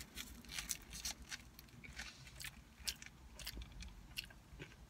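A person chewing a mouthful of bacon cheeseburger, with irregular small wet mouth clicks and crunches.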